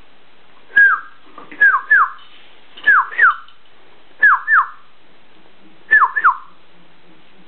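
Neighbours sawing: five bursts of short squeals, mostly in pairs, each squeal starting with a click and falling in pitch, roughly every one and a half seconds.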